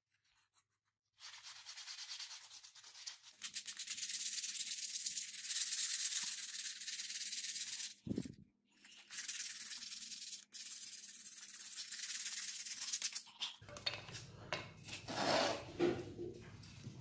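Steel bill hook blade being rubbed by hand with an abrasive pad: a steady, scratchy scrubbing in quick strokes. It breaks off briefly about eight seconds in and gives way near the end to handling noises and light knocks.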